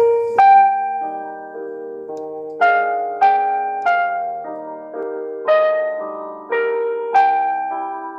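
Slow solo piano music: notes and chords struck one at a time, each left to ring and fade before the next, about one every half second to a second.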